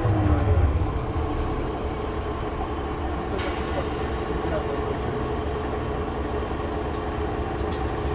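Mercedes-Benz O560 Intouro coach's diesel engine heard from inside the cabin as the bus comes to a halt at a stop: a falling whine and heavier rumble fade in the first second, then the engine idles steadily. About three and a half seconds in a steady hiss starts and keeps on alongside the idle.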